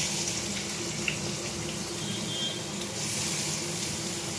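Hot oil sizzling steadily in a kadai, with a faint pop about a second in; the sizzle gets a little louder about three seconds in.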